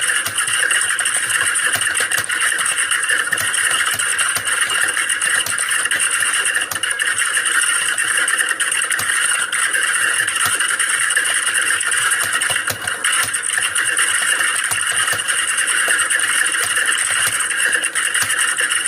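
Many computer keyboards being typed on at once, an unbroken clatter of overlapping keystrokes as in a typing exam hall.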